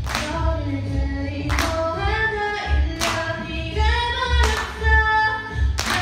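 A girl singing into a microphone over a backing track, with a drum hit about every second and a half and a low bass beat underneath.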